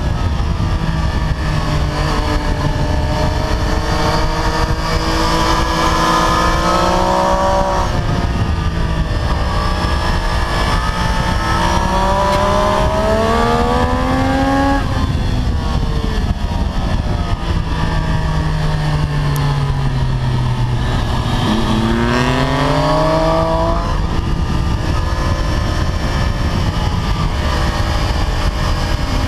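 Triumph Street Triple 765 RS inline-three engine heard onboard at track speed, with a steady rush of wind. The engine pitch climbs in long pulls under acceleration through the first half, falls away for several seconds past the middle as the bike slows, then climbs again.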